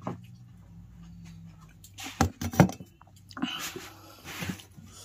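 A person eating chow noodles close to the microphone: a few sharp mouth clicks and smacks, two of them close together about two seconds in, and short noisy stretches of chewing, over a steady low electrical hum.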